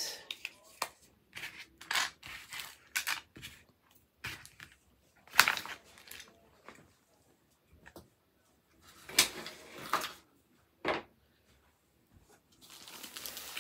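Small plastic diamond-painting tools (drill tray, pen, wax pot) being picked up, clicked together and set down on a table: scattered clicks, taps and rustles, the loudest about five and a half seconds in and around nine to ten seconds in. A plastic rustle starts near the end.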